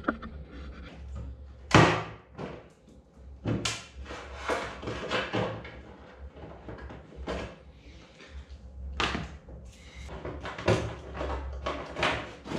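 Scattered knocks, taps and clicks of hands handling a large hard plastic body panel and working a turn-signal light loose from it, with the loudest knock about two seconds in.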